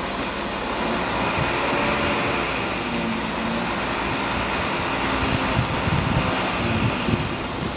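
A truck engine running steadily as it powers the truck-mounted crane lifting a load, with a constant mechanical hum and some uneven low rumble near the end.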